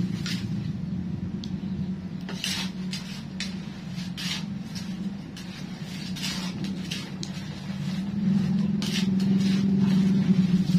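Metal spatula scraping and clattering in a wok in short, irregular strokes while frying over a wood fire. A steady low engine-like hum runs underneath and grows louder near the end.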